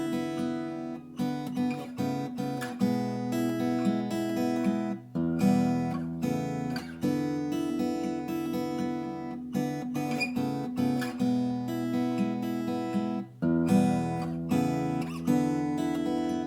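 Vintage Japanese steel-string acoustic guitar being played, with strummed chords and picked notes ringing out with long sustain. The chord changes every few seconds.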